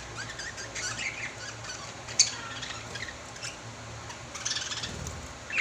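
Small pet birds chirping and squawking in quick, high squeaky calls, with a sharp click about two seconds in.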